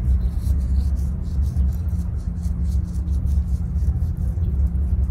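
Low rumble of wind buffeting the microphone, rising and falling in gusts.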